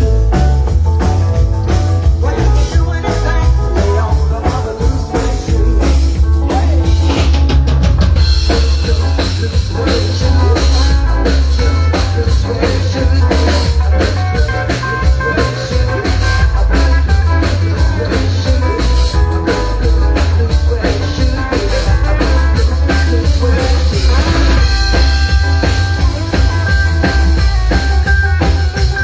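Live band music with a drum kit keeping a steady beat under bass and other instruments, without clear singing.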